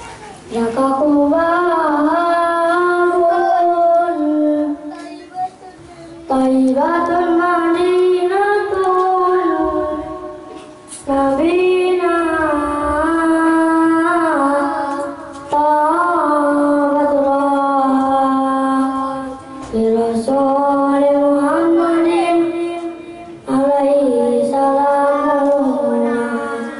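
A boy singing sholawat solo into a microphone with no instruments: six long, ornamented phrases that slide up and down in pitch, with short breaks for breath between them.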